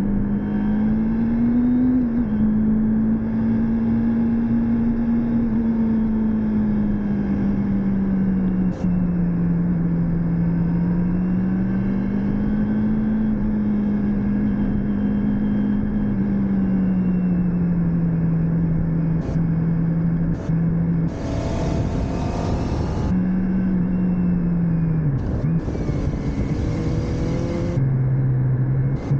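Motorcycle engine running steadily under way, its pitch slowly rising and falling as speed changes, with a step down in pitch near the end. Wind buffets the microphone in two stretches in the second half.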